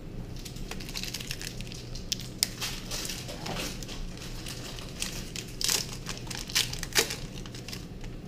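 Foil Pokémon booster-pack wrapper being torn open and crinkled by hand, an irregular run of crackles with a few sharp snaps.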